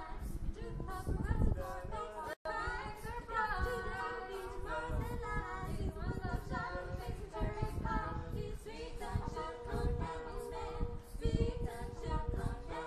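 A small group of young singers singing a cappella in harmony, with one note held steadily under the moving parts. The audio cuts out for an instant about two and a half seconds in.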